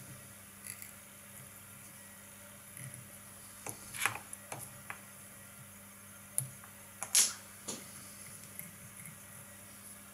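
Sparse light clicks and ticks of hands and tools working a fly in a fly-tying vise, with sharper clicks about four and seven seconds in.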